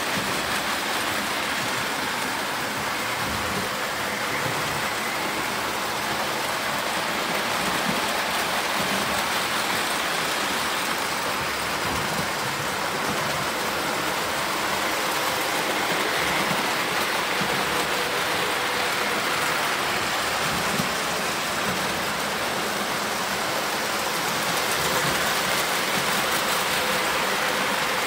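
Several electric toy trains running together on metal track loops: a steady whir of motors and rumble of wheels on rails, with faint wavering tones rising and falling as the trains circle.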